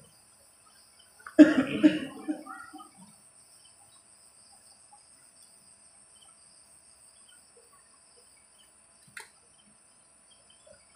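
A person coughs once, loudly, close to the microphone, about a second and a half in. A faint, steady, high-pitched hiss runs underneath.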